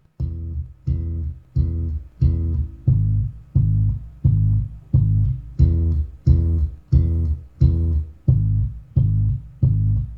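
Solo bass guitar plucking a repeated low riff, about three notes every two seconds, each note fading before the next, played back through Klipsch R-51M bookshelf speakers.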